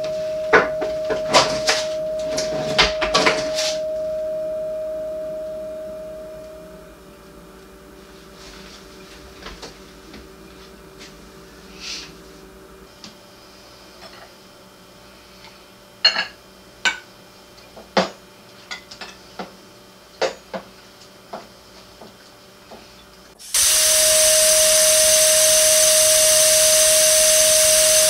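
A steady mid-pitched tone hangs over knocks and bangs from kitchen cabinet doors and their contents being handled, then fades away over a few seconds. Scattered clinks and knocks of dishes being handled at the counter follow. Near the end a loud hissing noise cuts in suddenly, with the same steady tone back on top of it.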